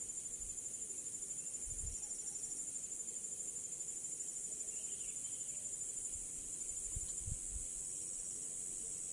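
Insects chirring steadily in a continuous high-pitched trill, with a few soft low bumps about two seconds in and again around seven seconds.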